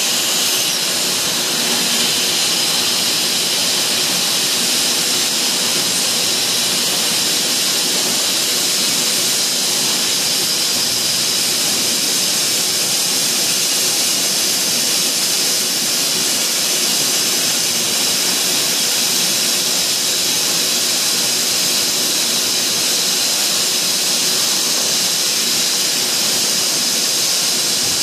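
Steady, loud machine noise filling a factory hall: a constant high hiss over a rumble, with no change or break.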